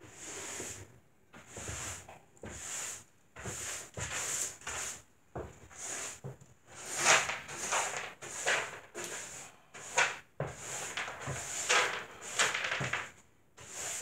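Broom sweeping a plywood floor: a steady run of short swishing strokes, a little more than one a second.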